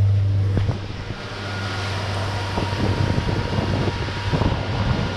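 Suzuki 90 hp outboard motor running at cruising speed with a steady low drone, under the rush of wind and water as the boat planes. Irregular low thumps come through in the middle, with wind noise on the microphone.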